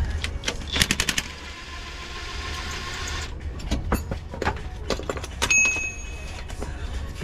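Cordless impact wrench hammering on a bolt under the car: a rapid rattle of blows about a second in that runs on until about three seconds in, then stops. Scattered metal clicks of the socket and tools follow.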